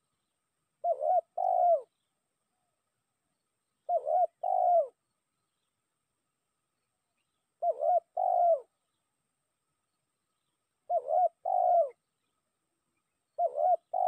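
Spotted dove (tekukur) cooing: five phrases about three seconds apart, each a short coo followed by a longer, falling one. It is a decoy bird's call, given to draw in a rival dove.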